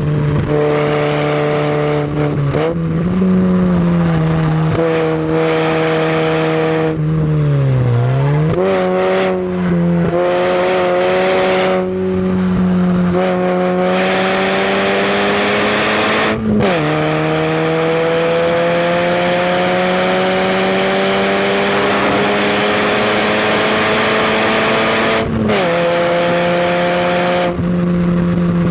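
Fiat barchetta's four-cylinder engine, heard from inside the cabin at full pace, with a steady haze of road and wind noise. The revs dip and pick up again about eight seconds in, climb steadily for long stretches, and drop sharply twice at upshifts, about two-thirds of the way through and near the end.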